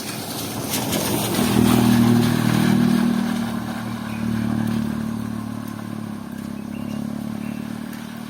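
A motorcycle passing close by with its engine running, loudest about two seconds in and then slowly fading away.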